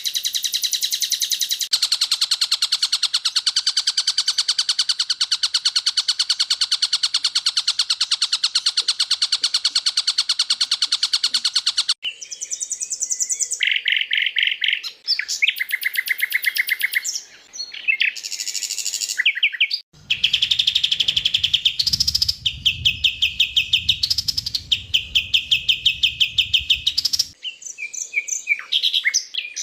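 Recorded songs of several songbirds spliced one after another. First comes a long, fast, buzzing trill lasting about ten seconds. Then come shorter runs of rapid repeated chirping notes that switch abruptly from one bird to the next, with a low rumble behind one run in the second half.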